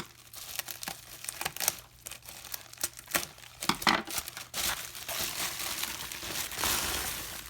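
Packaging crinkling and rustling as it is handled and pulled open, in irregular crackles with a longer, denser stretch of crinkling in the second half.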